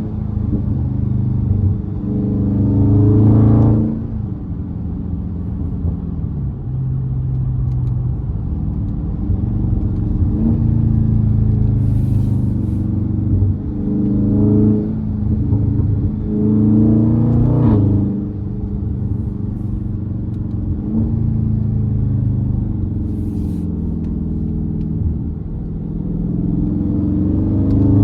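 Dodge Scat Pack's 392 (6.4-litre) HEMI V8 pulling hard. Its note climbs in pitch and drops sharply at each upshift, in bursts about three, fifteen and eighteen seconds in, with a steadier rumble between the pulls.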